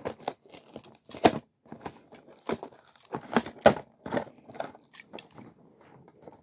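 Clear plastic blister tray and cardboard packaging crackling and crinkling as a toy train is pried out of it, in irregular sharp snaps, the loudest about a second in and again around three and a half seconds in.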